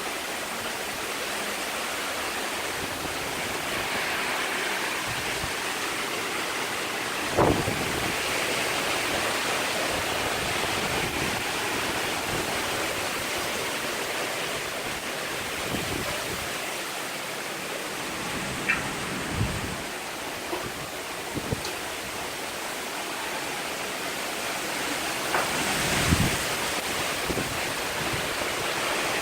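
Heavy hurricane rain and wind, a steady rushing noise, with a couple of brief knocks about seven seconds in and near the end.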